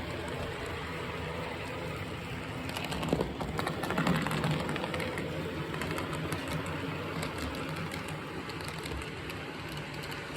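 HO scale brass model steam locomotive and coaches running on the layout's track: a steady whir and rattle of motor and wheels, with a short run of louder clicks and knocks about three to four and a half seconds in.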